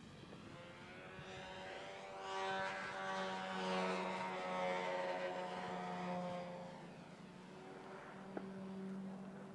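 Radio-controlled 3D aerobatic plane's motor and propeller running at a steady pitch as it passes low and close, growing louder over the first couple of seconds, loudest in the middle, then fading as it climbs away.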